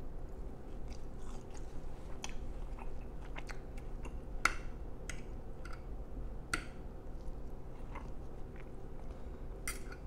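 A person chewing a mouthful of steak close to the microphone, with many small wet mouth clicks and smacks. A few sharper clicks stand out, the loudest about four and a half seconds in.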